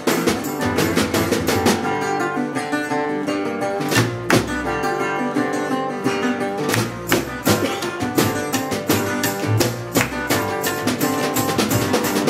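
Acoustic band playing: steel-string acoustic guitar strummed hard over an upright bass.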